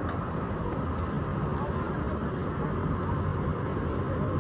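Steady road traffic noise: a continuous low rumble of vehicles and tyres with no distinct single event.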